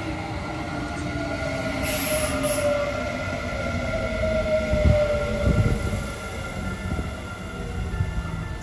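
Kintetsu electric express train braking into the platform: its motor whine slowly falls in pitch as it slows, over running rumble and a thin steady squeal. A few louder low thumps come about five to six seconds in.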